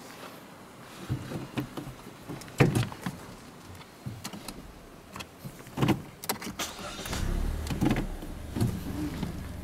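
Camera handling noise: a string of knocks, bumps and rubbing as the camera is moved about and its lens pressed close to a surface, then a low steady rumble from about seven seconds in.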